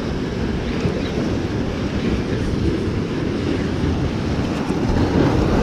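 Ocean surf washing over and breaking against rocks, with wind on the microphone: a steady rushing noise that swells slightly near the end.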